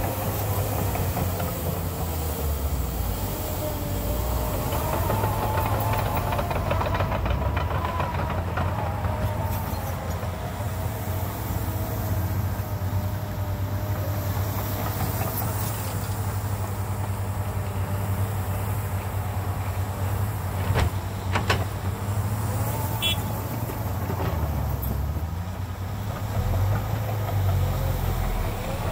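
Cat 953D track loader's diesel engine running and working under load, its pitch rising and falling as the machine moves and lifts its bucket to load fill into a dump truck. A few sharp knocks come about two-thirds of the way through.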